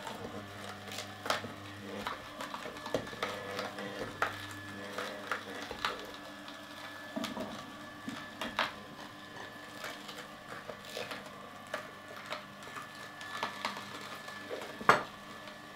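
Solo Star 4 horizontal slow juicer running with a steady low motor hum while carrot pieces are pushed down its chute with a plunger, the slow auger crunching and cracking them at irregular moments. The loudest single crack comes near the end.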